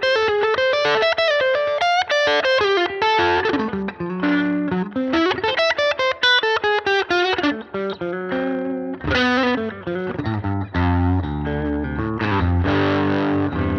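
Electric guitar played through an EarthQuaker Devices Life Pedal V3 distortion in its op-amp clipping mode at low gain, into a Fender Princeton Reverb amp. Quick picked runs of single notes climb and fall, then from about nine seconds in give way to held, lower chords.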